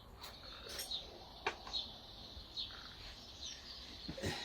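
Small birds chirping over and over, with a couple of sharp clicks.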